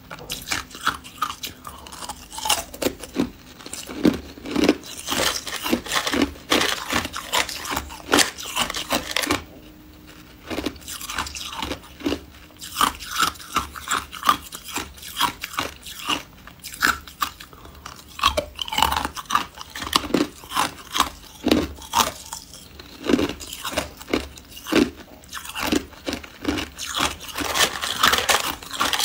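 Hard ice being bitten and chewed: an irregular run of sharp, crisp cracks and crunches as chunks are broken and crushed between the teeth, with a short lull about ten seconds in.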